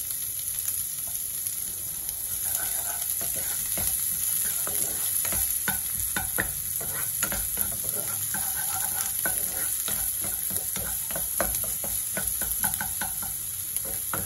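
Onion frying in hot oil with mustard seeds and curry leaves, sizzling steadily in the pan. A spatula stirs and scrapes against the pan in quick strokes, more often from about four seconds in.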